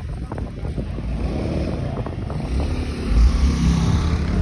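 Wind rumbling on the microphone, with a motorcycle engine becoming audible about three seconds in and growing louder toward the end.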